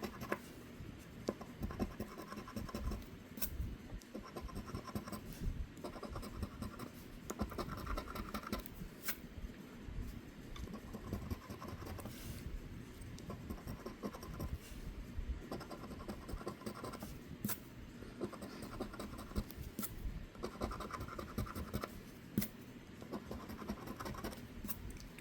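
Scratch-off lottery ticket being scratched off: fairly faint, repeated short scraping strokes with a few sharp ticks in between.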